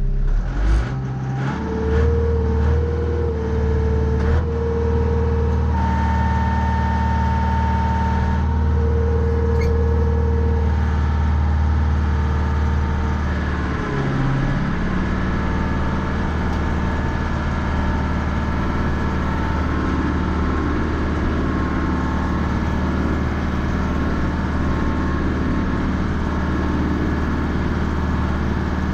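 Mahindra 3550 tractor's diesel engine running under load while plowing snow. A higher whine comes and goes over the first ten seconds, and the engine speed dips briefly about fourteen seconds in before running steady again.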